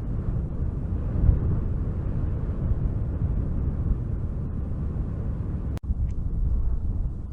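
Wind blowing in a steady low rumble that swells and eases in gusts, with a split-second dropout about six seconds in.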